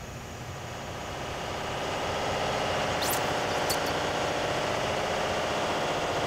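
Engine-room machinery hum laid on as a sound effect, swelling over the first two seconds and then holding steady. About three seconds in come two quick high swishes, under a second apart.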